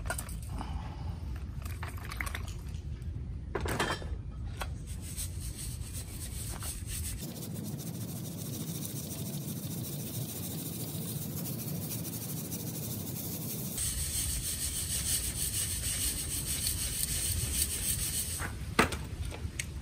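Crushed ore being shaken and worked through a 60-mesh sieve: a steady rasp of fine grit rubbing over the wire screen. There is a knock about four seconds in and another near the end.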